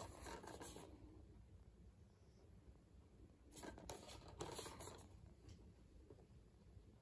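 Faint handling noise of a plastic DVD case held in the hand: soft rustles and clicks in two short spells, the second about three and a half seconds in as the case is turned over.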